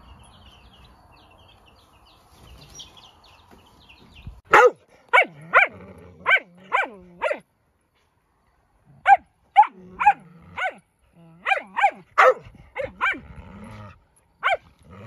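A dog barking in play at another dog: a quick run of about six barks, a short pause, then about ten more.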